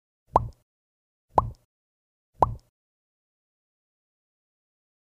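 Three short, identical thumps, evenly spaced about a second apart, each with a sharp click and a brief tone on top: an added sound effect over the black end screen.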